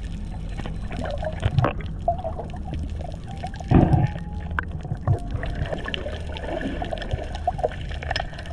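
Water heard underwater: a continuous muffled wash with many small clicks and crackles, and a louder surge of water noise about four seconds in.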